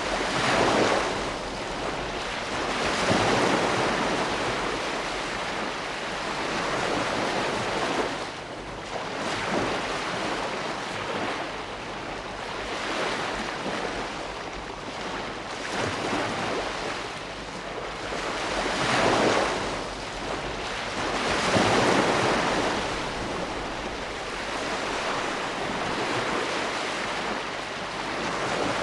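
Ocean surf: waves breaking and washing ashore, a steady rushing hiss that swells every few seconds as each wave comes in.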